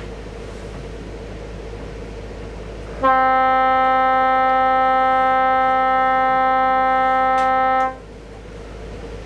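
A yacht's foghorn sounding one prolonged blast of about five seconds, a steady single-pitched horn tone starting about three seconds in and cutting off sharply. It is the periodic fog signal warning unseen boats in poor visibility.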